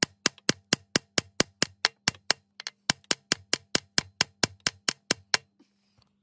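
Rapid, evenly spaced hammer blows on metal, about four to five a second, with a short break in the middle and a stop a little after five seconds.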